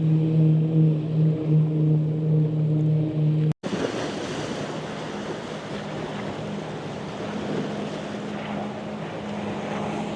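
Motorboat engine running with a steady low hum. About three and a half seconds in the sound drops out for an instant, then gives way to a rush of water and wind with a fainter engine hum underneath.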